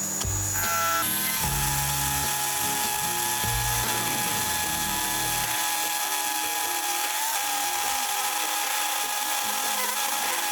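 A small high-speed electric motor starts up about half a second in and then runs with a steady high whine. Background music plays under it and fades out about halfway through.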